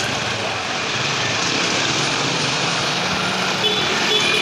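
Street traffic dominated by small motorcycle and tricycle engines running close by, a steady drone. A few brief higher tones come near the end.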